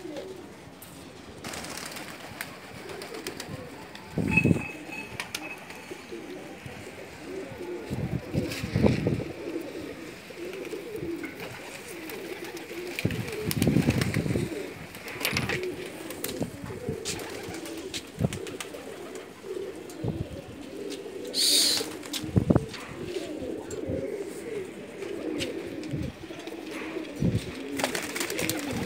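A flock of domestic pigeons cooing continuously, a steady low warbling, with a few short thumps scattered through it.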